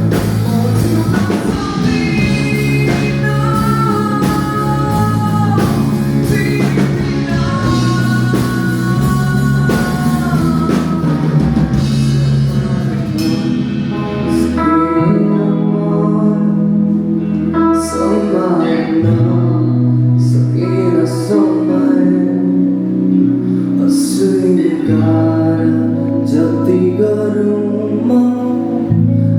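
A band playing a song live, with a sung melody over guitar, low bass notes and a drum kit. The drums come in more clearly about halfway through.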